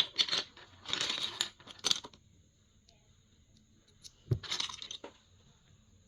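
Plastic keycaps and their packaging being handled: a few short bursts of crinkling rustle mixed with sharp plastic clicks.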